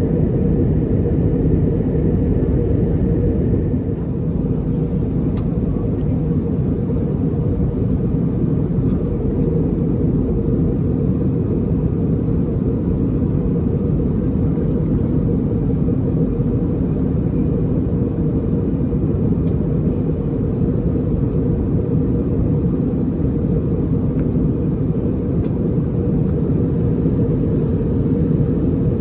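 Steady, even cabin drone of an Airbus A321neo in its climb to cruise: engine and airflow noise heard from inside the cabin, mostly low in pitch, with a slight dip about four seconds in.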